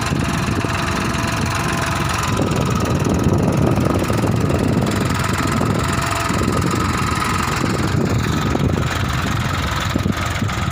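Massey Ferguson 241 DynaTrack tractor's three-cylinder diesel engine running steadily while pulling a two-furrow reversible mouldboard plough through the soil.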